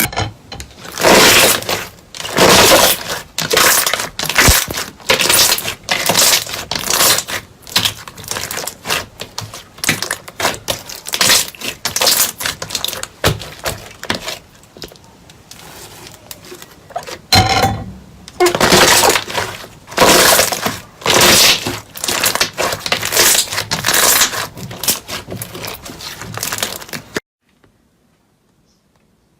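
Repeated crisp crunching and crackling of brittle material being crushed, one stroke after another about once a second, cutting off abruptly near the end.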